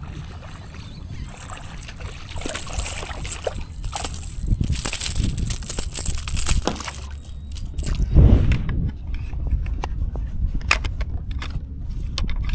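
Water sloshing and splashing around a fishing kayak, in uneven surges, with a run of light clicks and knocks near the end.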